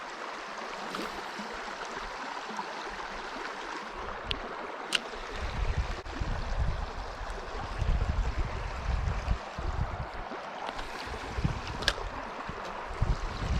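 Steady rush of river water. From about five seconds in, gusts of wind buffet the microphone, with a few faint clicks.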